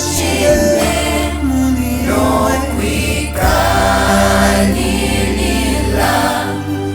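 A choir singing a gospel song over a steady bass accompaniment.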